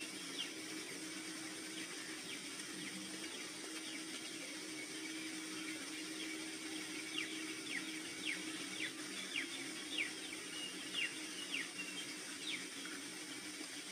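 Birds chirping over a soft, steady ambient drone. In the second half comes a quick run of short, falling chirps, about two a second, which are the loudest sounds.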